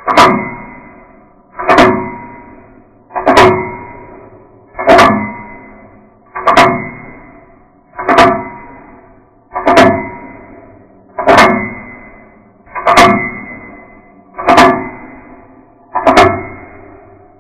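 A sharp struck sound repeating evenly, about once every second and a half. Each hit rings with a few steady tones and dies away before the next.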